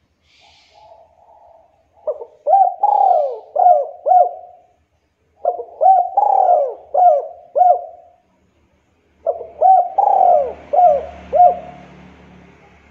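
Spotted dove cooing. A few soft notes come first, then three loud phrases of about five coos each, about a second apart.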